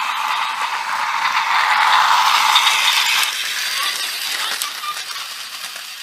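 Battery-powered Plarail toy train, the α-system 683 series Thunderbird, running along plastic track: a steady whirring, rattling gear-motor sound, loudest about two seconds in and dropping away after about three seconds.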